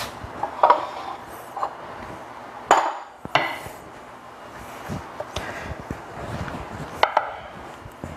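Dough being pressed out by hand and rolled with a rolling pin on a hard countertop: soft rubbing and handling with several sharp knocks, the loudest about a second and three seconds in.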